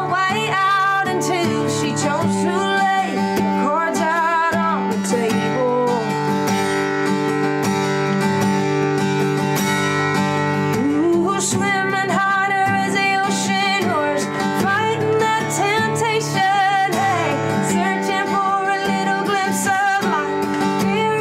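Acoustic guitar played by a woman who sings over it. Her voice drops out for several seconds in the middle, leaving the guitar on its own, then comes back.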